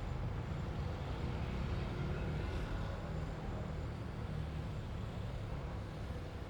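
Street traffic ambience: a steady rumble of passing cars and engines, with no single vehicle standing out.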